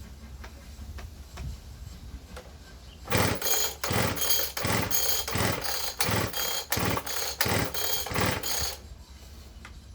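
Petrol disc cutter's two-stroke engine cranked by its recoil pull-starter about eight times in quick succession, roughly one pull every 0.7 s, without catching.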